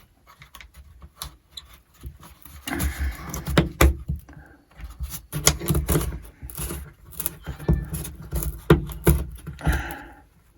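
Irregular clicks, knocks and clatter of hands-on handling work, with low rumbling bumps in between.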